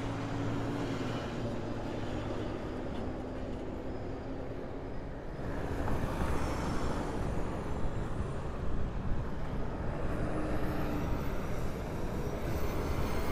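Street traffic: vehicle engines running with a steady low rumble and hum, growing louder about halfway through as a vehicle passes.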